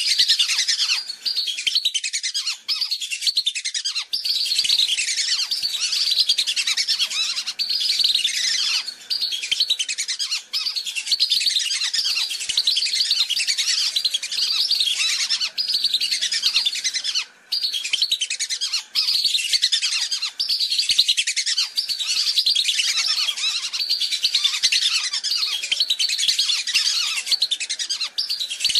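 Many whistling ducks calling at once: a dense, unbroken chorus of overlapping high whistles, with one brief gap a little past the middle. It is a recorded lure call, the 'busy' flock sound played to draw wild whistling ducks in.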